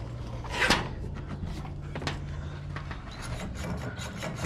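Rubbing and scraping of hands and metal hardware at a garage door's cable drum as the steel lift cable is handled, with a sharp knock about a second in and scattered small clicks.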